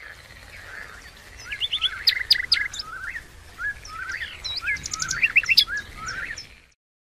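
Several songbirds chirping and singing together, a busy mix of short rising whistled notes and sharp high chips, over a faint low hum; it all stops shortly before the end.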